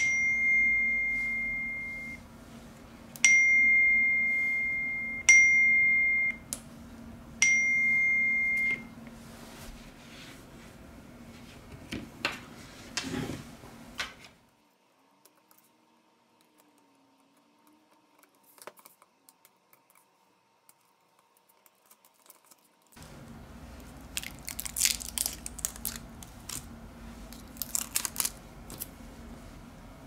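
An iPhone 6 sounding four electronic beeps of the same high pitch, each a second or two long and fading, as its screen is tapped in a function check of the repaired phone. After a silent stretch come light clicks and crinkling from handling the opened phone and tape.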